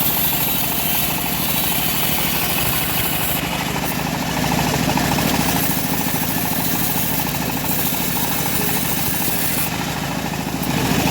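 Homemade engine-driven bandsaw mill running steadily: a constant engine hum with a wide hiss over it.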